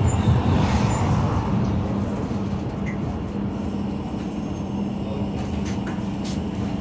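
City bus running, heard from inside the passenger cabin: a steady low engine and road drone that grows a little quieter over the first few seconds.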